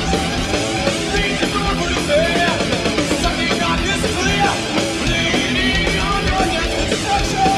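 Thrash metal band playing live: heavily distorted electric guitars, bass and drums, with a guitar note bending in pitch about two seconds in.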